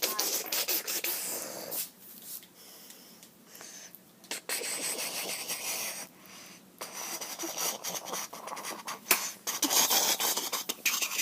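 Improvised home-made sound effects: bursts of hissing, scratchy noise with a few sharp clicks, quieter for a couple of seconds near the start and busier again after about four seconds.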